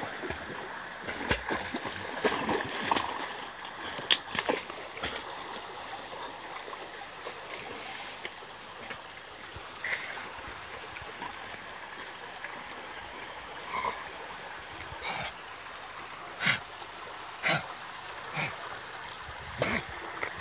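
A dog splashing in shallow water and scrambling out onto the bank, over a steady rush of water, with a scattering of sharp knocks and snaps.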